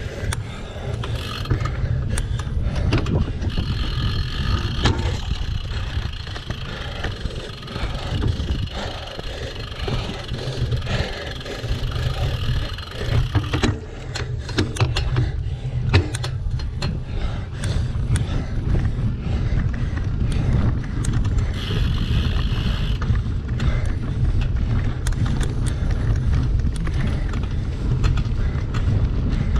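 Action-camera ride audio from a single-speed cyclocross bike raced over rough ground: heavy wind buffeting on the microphone with tyre rumble, and frequent sharp clicks and rattles from the bike.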